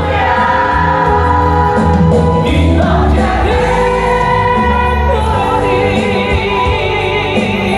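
Music with singing: a ballad with vocals over a steady bass and sustained accompaniment.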